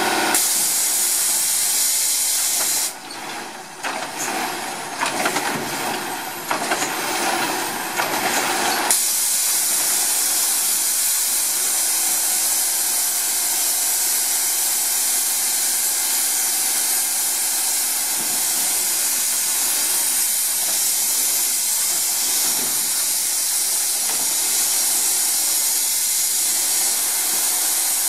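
Steady, loud hiss from a stopped Autocar WXLL / Labrie Automizer garbage truck. About three seconds in it drops away into a quieter, rougher sound for several seconds, then comes back and holds steady.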